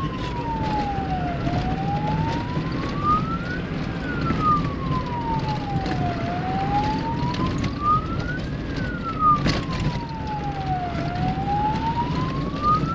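Electronic siren wailing, a single tone rising and falling slowly, one full cycle about every five seconds, over the low running of an off-road vehicle's engine on a dirt track, with a few short knocks from bumps.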